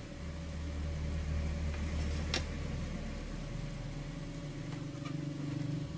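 Steady low electrical hum with one sharp click about two and a half seconds in, as the repaired thermostat controller circuit is switched on.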